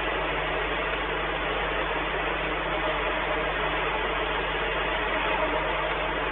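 Steady hiss with an unchanging low hum underneath, heard through a nest camera's microphone, with no distinct calls or knocks.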